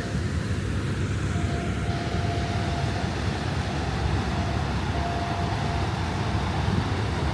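Steady roar of rushing water from the Niagara River rapids, an even rumbling hiss without breaks.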